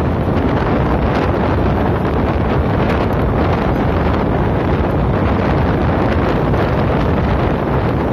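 Loud, steady wind buffeting the microphone held out of a moving train's window, over the low rumble of the train running along the track.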